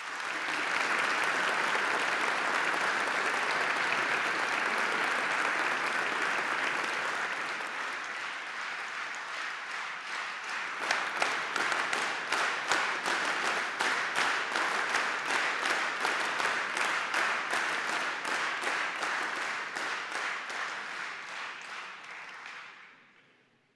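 An audience applauding at length. About halfway through, the clapping turns into a steady rhythm of distinct, unison claps, then dies away near the end.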